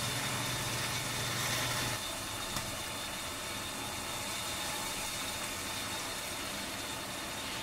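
Steady mechanical hum and hiss, with a low hum that stops about two seconds in.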